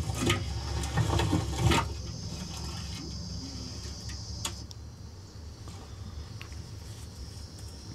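Short crackly rustling of a hand tossing masala-coated elephant foot yam slices in a large pot for about two seconds. After that it is quieter, with a faint steady high-pitched insect hum that fades in and out over a low hum.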